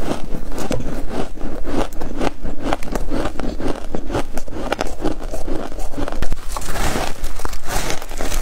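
Close-miked chewing of freezer frost: a quick, continuous run of crisp crunches and crackles from the soft frost ice packed in the mouth, with a fresh bite into a frost chunk near the end.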